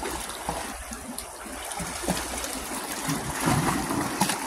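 Seawater washing and trickling among shoreline rocks, a steady wash with a few faint ticks.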